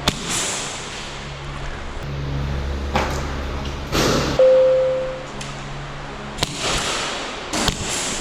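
Airsoft guns firing single snap shots and BBs striking cover: several sharp cracks a second or two apart, one hit ringing briefly near the middle, over background music.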